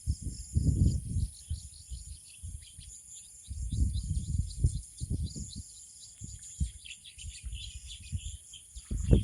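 Wind buffeting the microphone in uneven gusts, strongest near the start and again around four seconds in. Under it, small birds chirp and insects keep up a steady high buzz.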